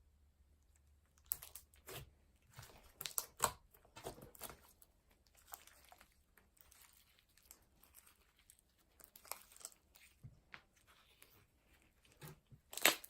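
Slime being squished and stretched by hand, giving irregular crackling, popping and tearing sounds.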